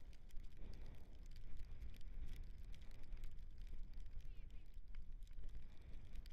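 Dog scooter rolling fast over a wet dirt trail: steady low rumble of the tyres and wind on the microphone, with scattered ticks and rattles from the scooter.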